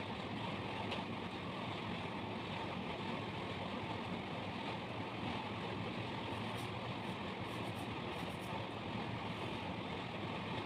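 Steady, even background noise with no distinct knocks, tones or motor sound.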